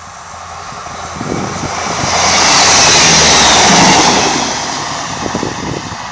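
Class 158 diesel multiple unit passing at speed: the rush of the train and its wheels on the rails builds up, is loudest for a couple of seconds as it goes by, then fades as it draws away.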